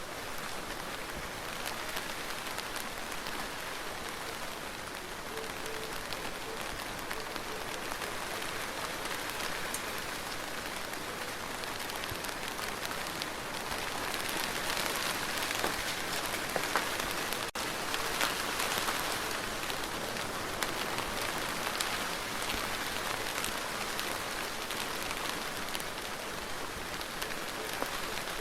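Steady rain falling, with individual drops heard as fine ticks through the hiss. It grows a little louder about halfway through, then eases back.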